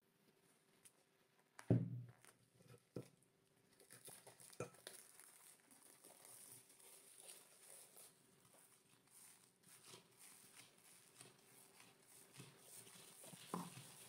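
Quiet kitchen handling sounds: a single thud about two seconds in, then faint rustling with light clicks, and near the end soft thumps as a gloved hand punches down risen yeast dough in a glass bowl.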